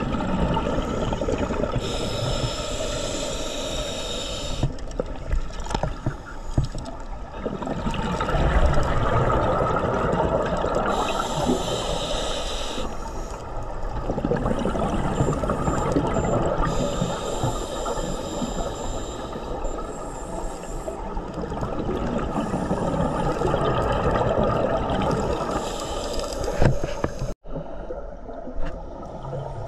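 Scuba diver breathing through a regulator underwater: short hissing inhalations alternating with longer bubbling exhalations, several breaths over the stretch. The sound cuts out for an instant near the end.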